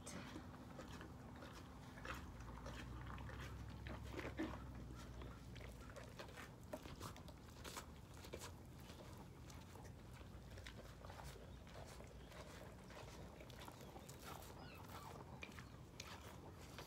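Faint crunching of a horse chewing feed from a tub, a scatter of small, irregular crunches.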